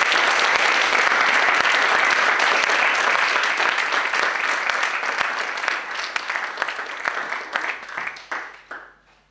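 Audience applauding, steady and full at first, then thinning into scattered claps over the last few seconds and dying away near the end.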